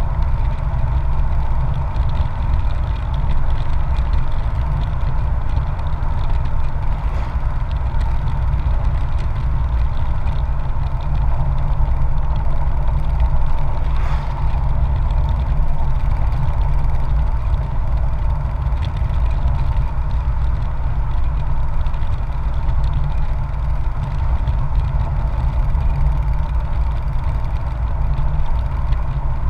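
Wind buffeting the microphone of a camera riding on a motorcycle at road speed, a heavy steady rumble, over the motorcycle's engine droning at an even pitch.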